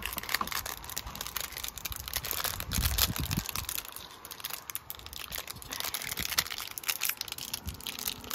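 Small clear plastic bag of dice crinkling as it is squeezed and turned in the hands, with many small irregular clicks from the dice inside.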